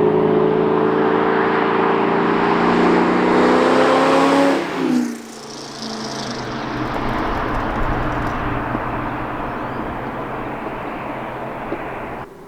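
Exhaust of a 2003 Ford SVT Cobra's supercharged V8 under load, its note rising steadily in pitch for about four and a half seconds. The note then drops suddenly to a quieter, lower steady drone, which cuts off abruptly near the end.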